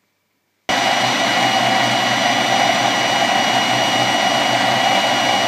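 Food processor motor running steadily with a high whine, its blade puréeing cooked chickpeas with tahini, lemon juice and garlic into hummus. It starts suddenly under a second in.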